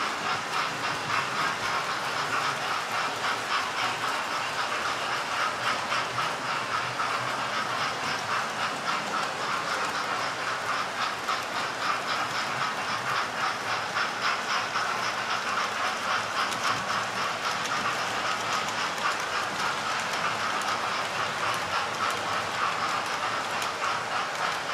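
Model railway trains running round the layout: a steady whirring rattle of locomotive motors and wheels, with fast continuous ticking over the track.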